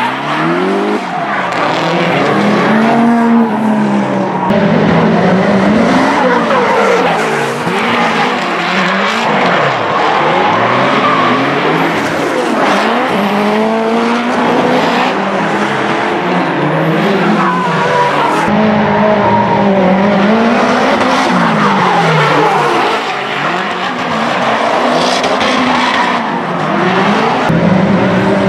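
Nissan S-chassis drift cars sliding through corners, their engines revving up and dropping back again and again, with tyre squeal and skidding throughout.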